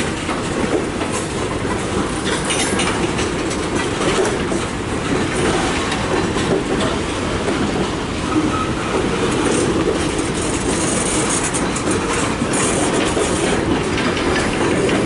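Freight cars rolling past on two tracks at once, tank cars close by and a double-stack intermodal train behind: a steady rumble of steel wheels on rail with rapid clickety-clack over rail joints and patches of high wheel squeal.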